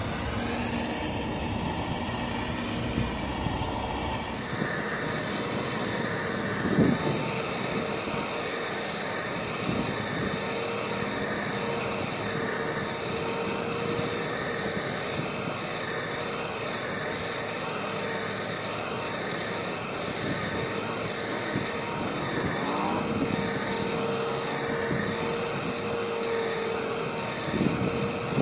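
Handheld cylinder gas torch burning with a steady hiss and a faint held tone, its flame played on the generator tube of a vintage Coleman 425E camp stove to preheat it for running on diesel. A few brief bumps come through, once about seven seconds in and again near the end.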